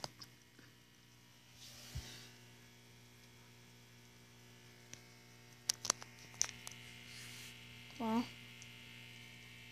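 Steady low electrical hum. A few light clicks come about six seconds in as small plastic toy figurines are handled, and a brief hummed vocal sound comes near the end.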